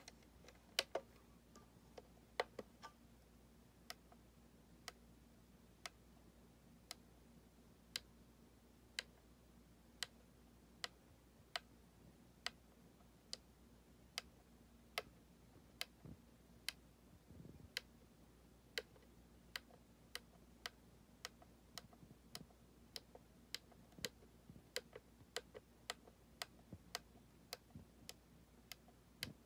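Sharp detent clicks of a Mooer GE200 multi-effects unit's value knob being turned one step at a time, one click per preset, about one a second at first and quicker towards the end. A faint steady hum lies underneath.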